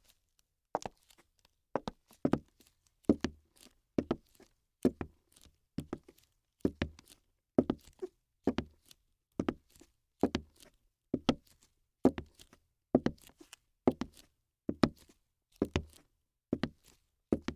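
A steady series of knocks or thuds, a little under one a second, each made of two or three quick hits.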